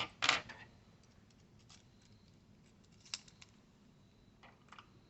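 A brief scrape near the start, then a few faint, sharp clicks spread out, from small tools and parts being handled while a laptop's keyboard cable and screws are taken out.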